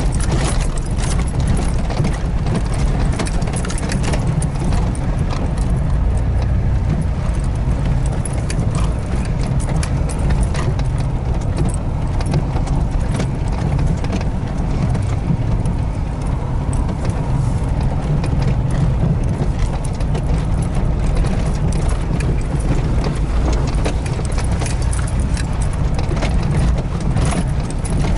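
Vehicle driving slowly over a rough, muddy dirt track, heard from inside the cab: a steady low engine and road rumble with frequent knocks and rattles from the bumpy ground.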